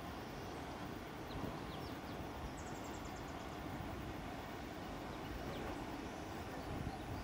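Outdoor ambience: a steady rushing noise with an irregular low rumble, with a few faint, high bird chirps, including a quick series of short chirps about three seconds in.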